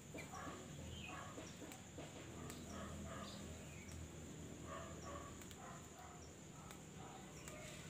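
Faint outdoor ambience: scattered short bird chirps over a steady low hum, with soft rustling and snapping as lemon basil leaves are picked by hand.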